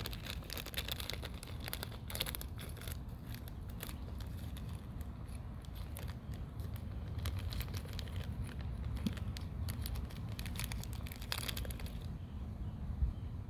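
Rustling and crinkling of plastic packaging, with small clicks, as loose spade crimp terminals are picked through by hand.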